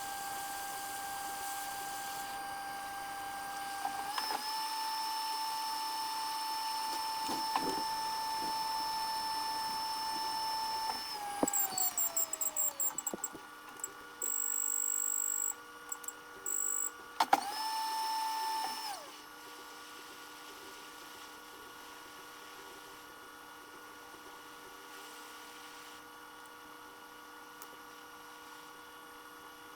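Hot air rework station blower whining steadily. About four seconds in the whine steps up in pitch, and around eleven seconds it winds down, followed by a quick run of high beeps and then longer beeps. The whine comes back briefly near seventeen seconds and stops, leaving a low steady hum.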